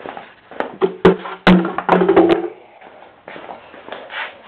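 A quick run of sharp knocks and taps as objects and the handheld camera are handled, with a steady tone lasting about a second and a half under them, then a quieter rustle.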